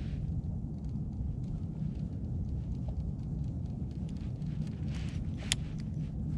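Steady low wind rumble on the microphone over open ice, with faint scattered ticks and one sharp click about five and a half seconds in.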